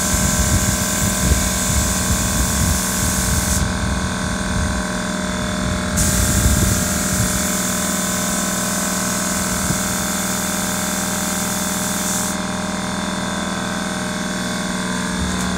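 Gravity-fed paint spray gun hissing as air and atomized paint blow out in two bursts: one of about three and a half seconds, then, after a short pause, one of about six seconds that stops about twelve seconds in. A steady machine hum runs beneath.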